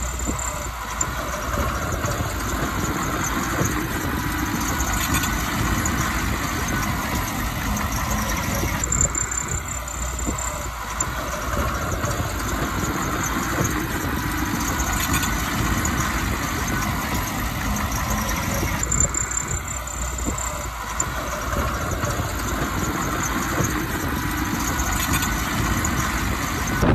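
Heavy earth-moving machinery's diesel engine running steadily.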